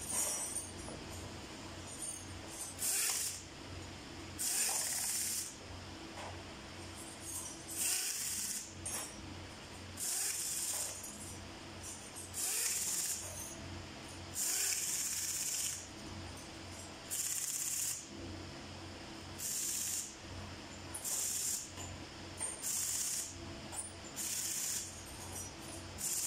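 Compressed-air blow gun hissing in about a dozen short blasts, each roughly a second long, as diesel cylinder heads are blown clean. A steady low hum runs underneath.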